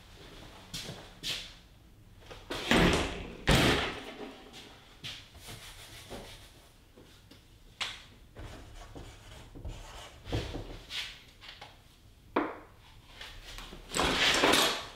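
Whiteboard being erased and written on with a dry-erase marker: rubbing and marker strokes on the board, with scattered knocks. The loudest rubbing comes about three seconds in and again near the end.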